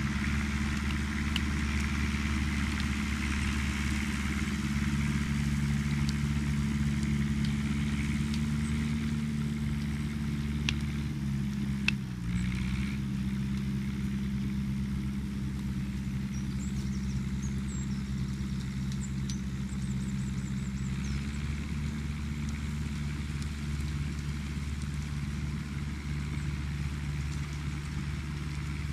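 John Deere tractor's diesel engine running steadily as it works a rotor muck spreader, with a brief dip in engine pitch about twelve seconds in before it settles back.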